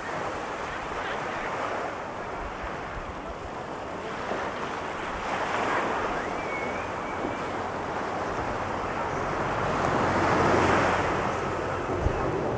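Pacific surf breaking and washing up the beach in a continuous rush, swelling louder about halfway through and again near the end, with wind buffeting the microphone.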